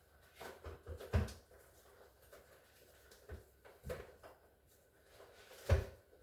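Scattered knocks and clunks of refrigerator parts and tools being handled, with two heavier thumps, one about a second in and one near the end.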